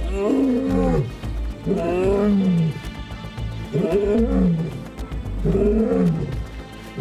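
Male lions roaring: four long calls about a second and a half apart, each falling in pitch. It is a territorial roar answering rival nomad males.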